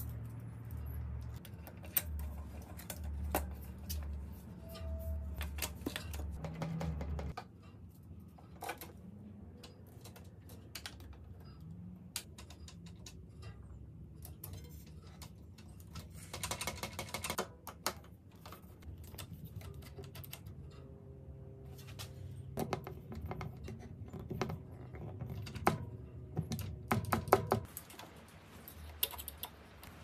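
Light clicks and taps of tools and bicycle parts being handled during a road bike build, with a quick run of rapid clicking about halfway through and a busier cluster of clicks near the end. A low pulsing hum sounds for the first several seconds and then stops.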